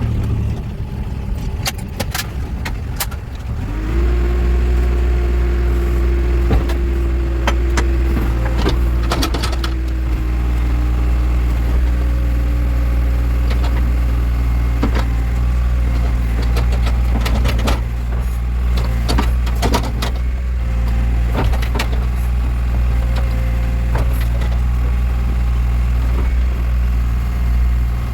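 Backhoe loader's diesel engine running steadily, stepping up to a louder, heavier note about four seconds in and holding there, with a whine that rises with it and then slowly sinks in pitch. Scattered short clanks and knocks sound over the engine.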